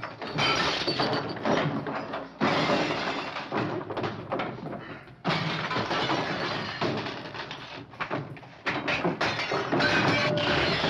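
A room being smashed up by hand: furniture and ornaments crash and glass breaks in four big surges of clatter, about every two to three seconds, from a 1940s film soundtrack.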